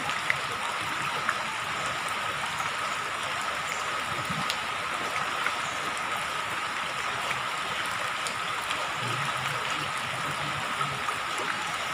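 Steady rain falling onto shallow floodwater: a continuous watery hiss with scattered drop ticks, and a thin steady tone underneath.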